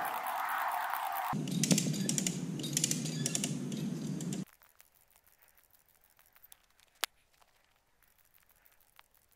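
A tree stump being winched over by a hand rope puller, its roots tearing out of the soil with a dense run of crackling and clicking. About four and a half seconds in it stops abruptly, leaving near quiet with a few faint ticks.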